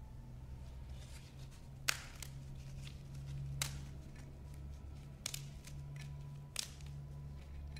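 Gloved hands handling communion wafers and altar vessels: a few sharp clicks and light rustles over a steady low hum.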